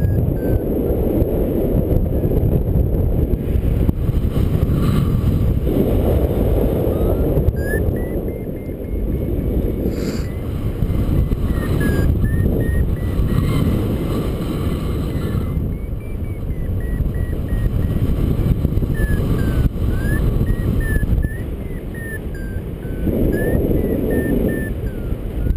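Wind rushing over the microphone in paraglider flight, with a variometer beeping in short tones that climb and fall in pitch as the lift changes, the sound of working a thermal.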